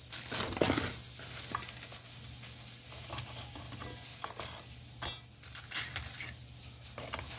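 Hands laying wet, thawed pollack fillets into a stainless steel bowl: soft irregular rustling and small clicks, with one sharper tap against the bowl about five seconds in.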